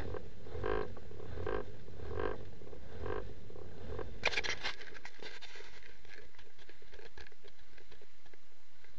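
Handling noise from a camera being repositioned inside a small car: a burst of sharp clicks and scraping about four seconds in, then scattered lighter clicks. Before it come five soft, regular pulses about a second apart.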